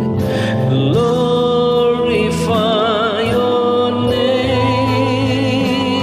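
A voice singing a slow worship song over instrumental backing, holding long notes with vibrato.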